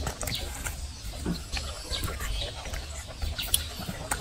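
A macaque biting and chewing watermelon, making irregular short wet clicks and smacks, with birds chirping in the background.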